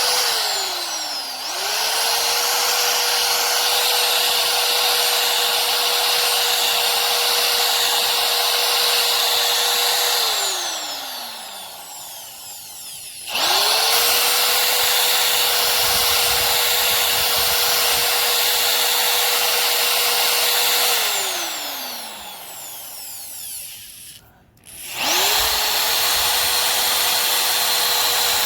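An electric power tool's motor, used on old rubber leaf-spring bushings, runs in three long stretches with a steady whine. Each time it spins up quickly, holds full speed, and winds down when released. It stops about 10 seconds in, again around 21 seconds, and starts for the third time just before the end.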